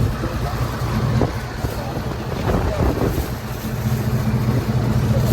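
A motor vehicle's engine running steadily, a low rumble with wind noise across the microphone.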